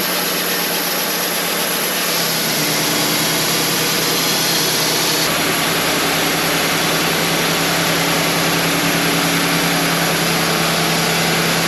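Wood-Mizer LT35 portable sawmill running steadily, its engine giving a constant hum under a broad even noise.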